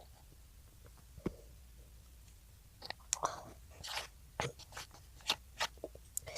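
A child chewing food close to the microphone, with soft wet mouth clicks. It is sparse at first and comes more often from about three seconds in.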